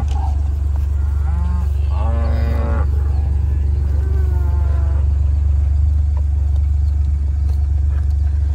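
Cows mooing about three times, the loudest call a couple of seconds in, as the herd calls for range cubes. Under the calls runs the steady low hum of a farm vehicle's idling engine.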